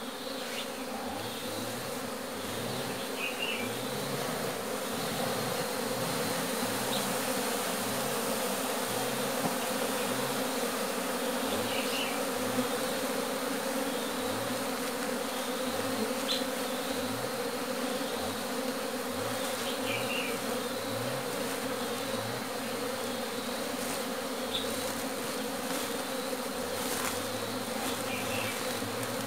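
A mass of honeybees buzzing in a dense, steady hum around a hollow-log hive as colonies are shaken in from a sack and merged, with single bees droning close past now and then.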